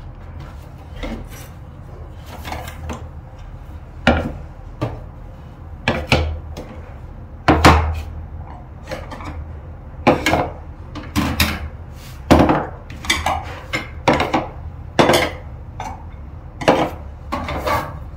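Ceramic bowls and small side-dish plates being set down one after another on a low table: a run of irregular knocks and clinks starting about four seconds in.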